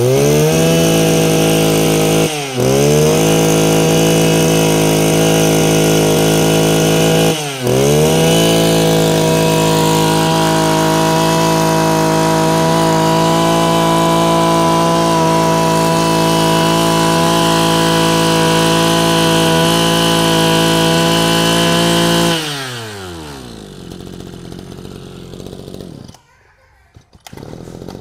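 Mitsubishi TL23 23cc two-stroke brush cutter engine revved up to high speed and held there. Its pitch dips and climbs back twice in the first eight seconds as the throttle is let off and reopened. About 22 seconds in, the throttle is released and the revs fall away.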